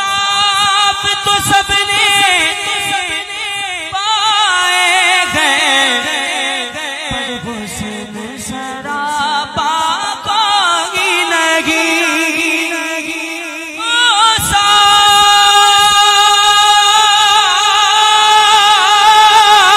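A man singing an Urdu naat into a microphone, drawing out long melismatic notes with a wavering vibrato and no distinct words. About two-thirds of the way through he comes in louder on a new sustained phrase.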